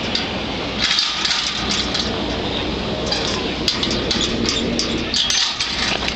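Footsteps crunching on gravel, with irregular light metallic clinking mixed in.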